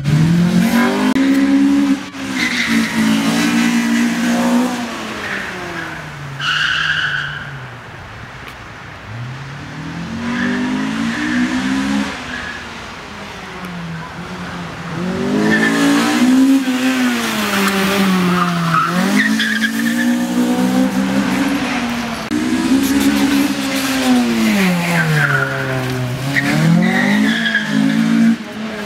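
Honda Civic's B16A2 1.6-litre VTEC four-cylinder being driven hard round a course, its revs climbing and dropping again and again between corners, with short tyre squeals in the turns. It grows quieter for several seconds in the middle as the car gets farther away.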